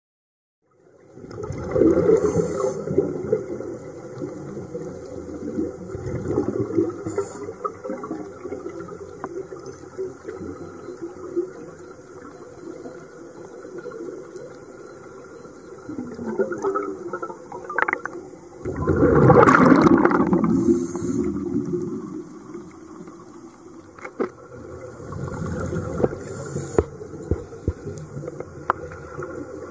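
Scuba diver's exhaled air bubbling from the regulator underwater, in repeated swelling bursts like breaths, the loudest about two-thirds of the way through.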